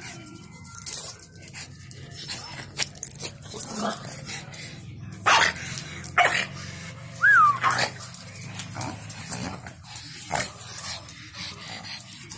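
Dogs barking for a tennis ball held up in play: two sharp barks about five and six seconds in, then a short high yelp that rises and falls in pitch.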